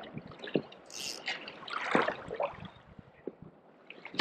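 Water splashing and dripping at a kayak's side as a small ballan wrasse is drawn up and landed by hand, with a few small knocks. The splashing is loudest about two seconds in.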